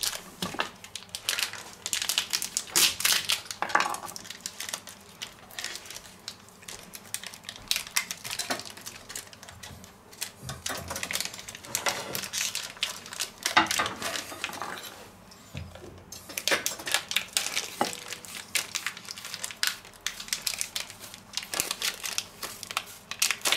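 Wrapper of a marzipan paste block crinkling and rustling as it is picked and torn open by hand, with many small irregular crackles and clicks.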